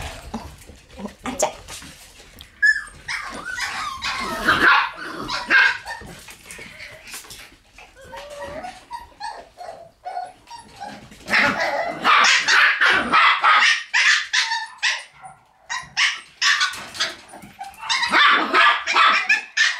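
Shiba Inu puppies barking and yipping in repeated bursts, busiest around the middle and again near the end.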